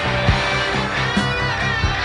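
Rock background music with electric guitar and a steady drum beat.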